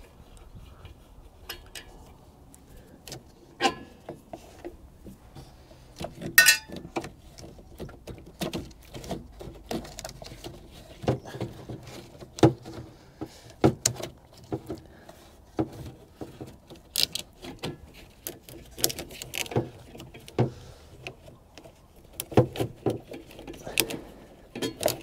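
Irregular clicks, taps and rattles of hands working the air filter and its housing off a Cummins Onan QG 4000 RV generator, with a few sharper knocks now and then.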